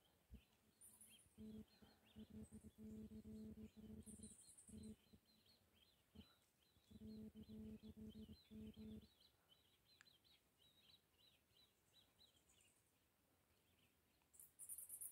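Faint small-bird chirping through the quiet. Twice, about a second and a half in and again about seven seconds in, a low buzz pulsing rapidly on a steady pitch runs for a few seconds and is the loudest sound.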